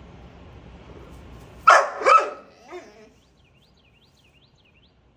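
XL Bully dog giving two short, loud barks in quick succession about two seconds in, with a small third sound just after.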